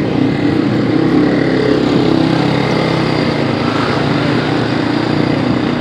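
Small motorcycle engine running steadily, a low buzzing drone with rushing noise over it.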